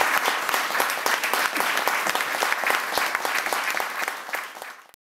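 Audience applauding: many people clapping together, fading out near the end and then cut off.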